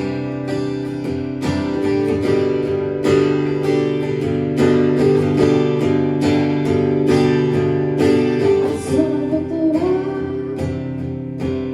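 Acoustic guitar strumming chords in an instrumental passage of a song, with a gliding melody line coming in near the end.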